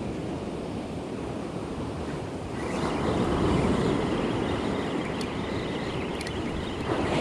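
Surf washing up a sandy beach, with wind buffeting the microphone; the wash swells louder about two and a half seconds in, then eases near the end.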